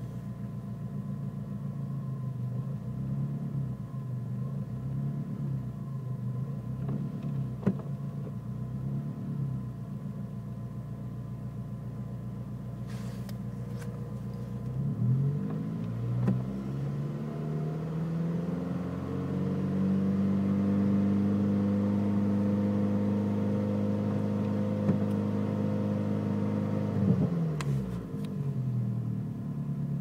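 Turbocharged Nissan Micra engine idling roughly, which is the fault the owner is showing. About halfway through it is revved to around 2,000 rpm and held steady for about twelve seconds, then drops back to idle near the end.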